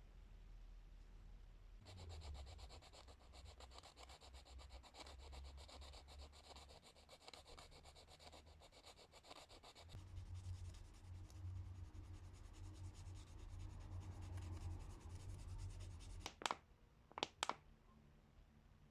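Quiet, rapid hand-sanding strokes on a screwdriver. About halfway through they give way to a lower, smoother rubbing, and three sharp clicks come near the end.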